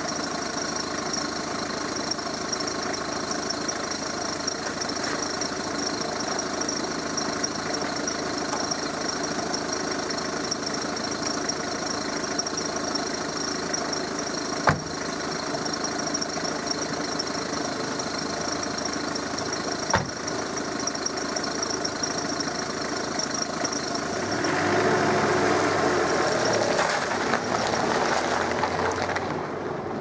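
Pickup truck's engine idling steadily, with two short knocks about five seconds apart. About 24 seconds in the engine grows louder as the truck pulls away, then fades near the end.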